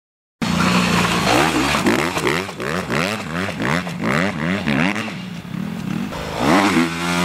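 Dirt bike engine revving up and dropping back over and over, about twice a second, as the rider works the throttle around the track. It steadies briefly, then climbs again near the end.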